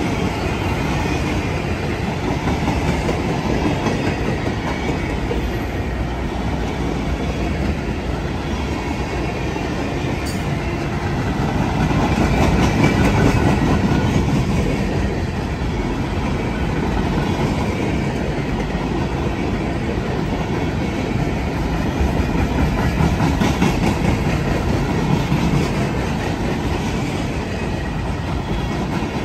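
A CSX freight train's cars rolling past at trackside, the wheels clattering over the rail joints in a steady clickety-clack.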